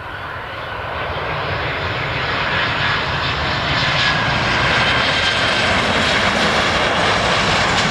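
Boeing 737-800 jet on final approach to land, its CFM56-7B turbofan engines sounding as a roar with a high whine over it. It grows louder over the first few seconds as the jet comes in low, then holds steady.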